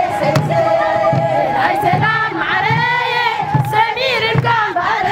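A crowd of women singing together, their voices wavering, over a steady low beat.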